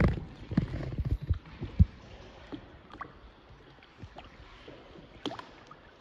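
Small paddled boat moving along an underground river: several knocks and thumps of paddle and water against the hull in the first two seconds, then a quiet stretch with scattered small clicks over a low steady hiss.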